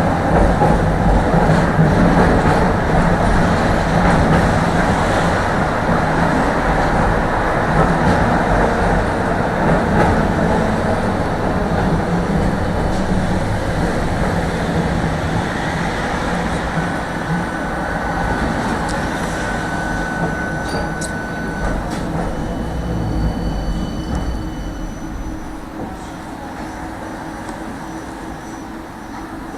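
Tram running along the rails with a steady rolling rumble. A thin high wheel squeal comes in for a few seconds past the middle. The running noise grows quieter over the last few seconds as the tram slows.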